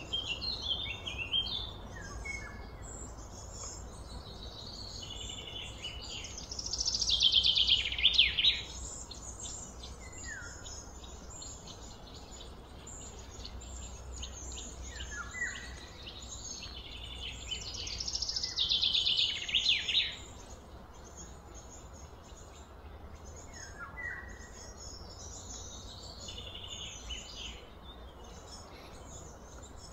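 Wild birds singing and calling throughout. Twice a louder trilled song about two seconds long stands out, about a quarter and two thirds of the way in, and short falling calls recur between them.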